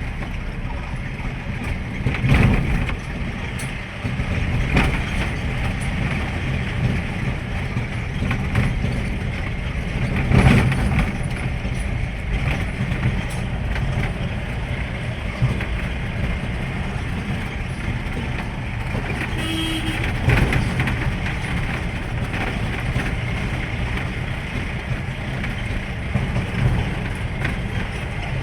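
Steady rumble of a vehicle being driven along a road, engine and road noise together, with a few louder bumps.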